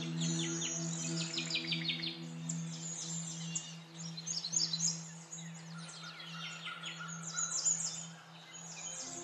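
Background ambient music: a held low drone chord with birdsong chirping over it, the chord changing near the end.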